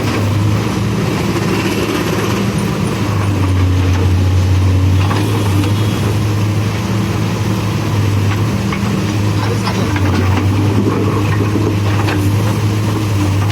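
Diesel engine of a CASE backhoe loader running steadily under light working load, with a low, even hum and a few faint knocks.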